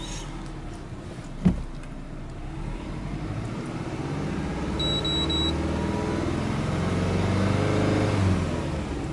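Subaru EJ20 turbocharged flat-four (boxer) engine running just after starting, its revs rising slowly to about 3000 rpm and dropping back near the end. A sharp knock comes about a second and a half in, and three quick high beeps about five seconds in.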